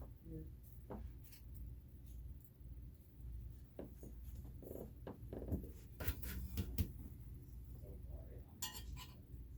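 Scattered light clicks and clinks of small hard objects being handled, with a few sharper knocks about six to seven seconds in.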